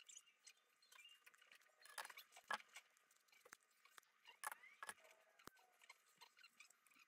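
Faint scratching and crinkling of a knife blade cutting and scraping through dried paper mache, with a few sharper clicks and snaps about 2, 2.5, 4.5 and 5 seconds in.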